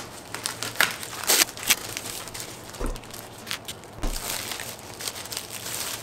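Clear plastic bag crinkling and crackling as a photo print is handled and pulled out of it, in quick irregular rustles, with two dull soft bumps in the middle.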